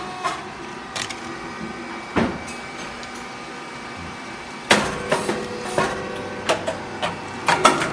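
Grain cake popping machine running: a steady mechanical hum with occasional clicks, then a loud sudden bang about four and a half seconds in, followed by a quick series of clicks and clatter.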